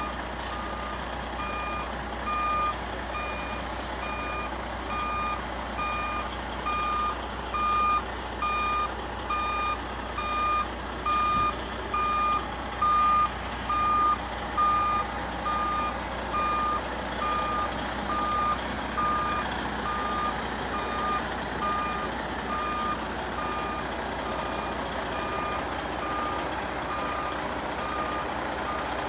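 Heavy cab-over crane truck reversing, its reversing alarm beeping steadily at one pitch about one and a half times a second over the diesel engine's hum. The beeps grow louder through the middle and fade toward the end.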